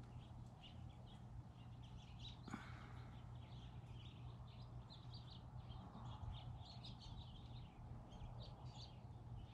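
Faint chirping of small birds, short scattered calls throughout, over a steady low hum, with a single click about two and a half seconds in.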